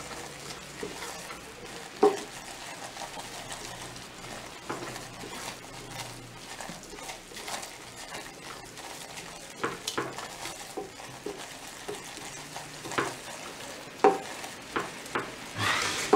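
A silicone spatula stirring a roux of flour toasting in butter and oil in a saucepan, with a soft steady sizzle under it. Scattered knocks and scrapes of the spatula on the pan, the sharpest about two seconds in and about two seconds before the end.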